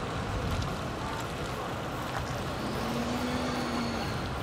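Road traffic noise heard from a moving bicycle: a steady wash of passing vehicles. A little under three seconds in, a steady low hum sounds for just over a second.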